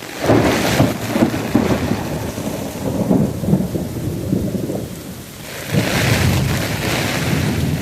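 Thunder rumbling through a heavy rainstorm. The rumble breaks in suddenly just after the start and rolls on for about five seconds over the steady hiss of pouring rain. Near the end the noise of rain and wind swells again.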